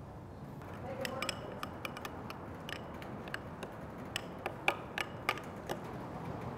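A spoon stirring mayonnaise and ketchup in a small glass bowl, clicking and scraping against the glass in quick, irregular taps that begin about a second in.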